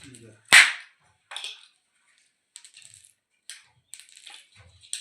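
Hard, dried adda (Bauhinia vahlii) pods cracked open by hand pressure: one sharp crack about half a second in, then lighter clicks and rattles as the shell pieces and seeds are handled.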